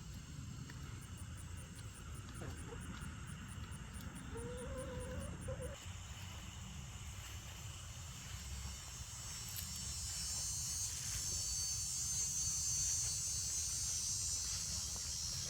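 Insects calling: a high, rapidly pulsed chirping for the first several seconds, then a steady high buzz that swells in the second half, over a low rumble.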